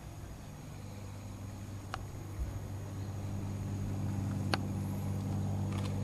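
A steady, low engine drone from an unseen motor grows gradually louder, with a couple of faint clicks.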